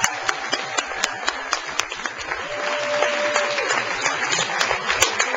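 Audience applauding: many hands clapping irregularly.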